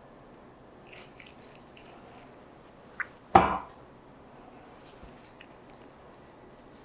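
Quiet handling sounds of gloved hands with gauze: soft rustles, two small clicks, and one short thump about three seconds in that is the loudest sound.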